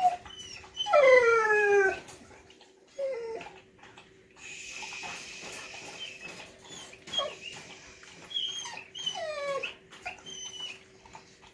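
A dog whining in the background: a string of short, high, falling whimpers, with a longer, louder falling whine about a second in and another run of whines near the end. A steady hiss comes in for a couple of seconds in the middle, over a faint constant hum.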